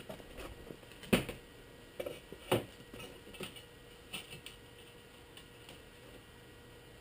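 Scattered light clicks and knocks from handling tools and parts, with two louder knocks about one and two and a half seconds in, then only faint steady room tone.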